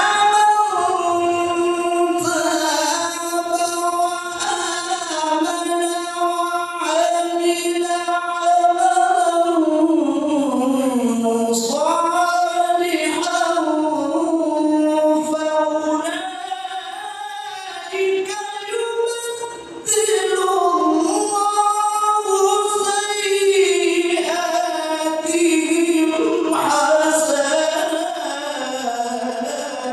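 A man's solo voice chanting a melodic religious recitation into a microphone, in long held notes that waver and glide up and down. There is a short drop in loudness about two-thirds through, a breath between phrases.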